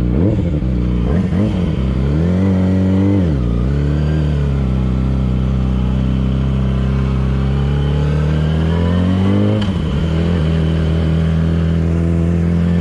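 Yamaha R6 inline-four engine through a LeoVince aftermarket exhaust. The revs rise and fall twice in the first few seconds, then climb slowly and steadily. They dip sharply about ten seconds in and then hold steady.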